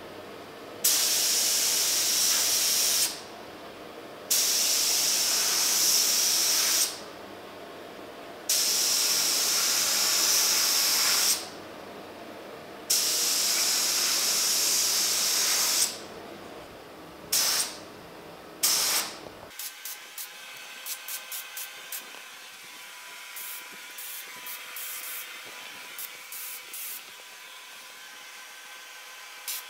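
Gravity-feed spray gun hissing as it sprays polyester primer. There are four long passes of about three seconds each with short pauses between them, then two brief bursts and a run of short, quieter spurts.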